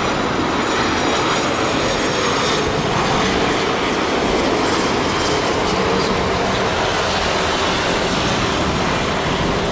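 Jet noise from an Embraer Legacy 650's twin Rolls-Royce AE 3007 turbofans as it lands: a steady rushing engine sound, with a faint high whine that drops slightly in pitch during the first few seconds.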